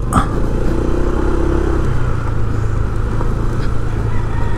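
A motor vehicle engine running steadily, a low even hum with road noise.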